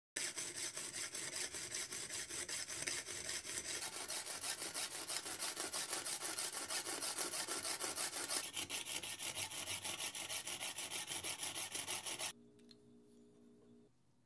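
Coping saw cutting through a pearl oyster shell with quick, even back-and-forth strokes. The sawing stops suddenly near the end.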